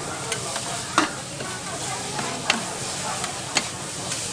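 Noodles sizzling on a flat iron teppanyaki griddle as two metal spatulas toss them, with sharp, irregular clacks of spatula on the plate; the loudest comes about a second in.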